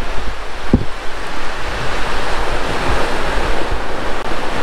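Sea surf breaking on the shore, a loud steady rush of waves, with wind buffeting the microphone. A short low thump about a second in.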